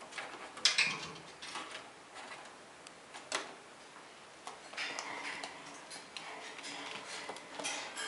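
A pet black squirrel scurrying and foraging on a hard wooden floor: scattered ticks and scrapes, with a sharp click within the first second and another near the middle.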